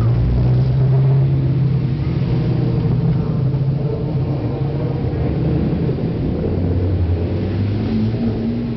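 Race cars' engines running at low pit-lane speed as the cars roll past one after another, a loud low engine note whose pitch shifts as one car goes by and the next comes up.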